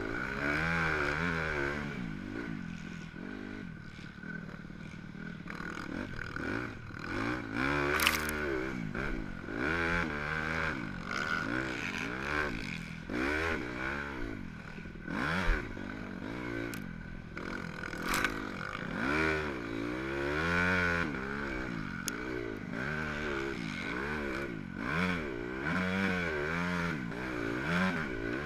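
Dirt bike engine heard on board, revving up and down continuously as the rider works the throttle and gears along a sandy track. A few sharp knocks cut through, loudest about eight and eighteen seconds in.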